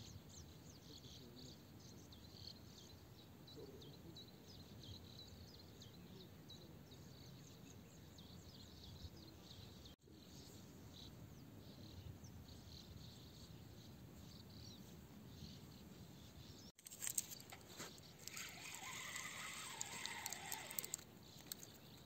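Quiet riverbank ambience with faint small bird chirps and insect calls. About two thirds of the way in it gets louder, with a busier rustle, clicks and a few clearer bird calls.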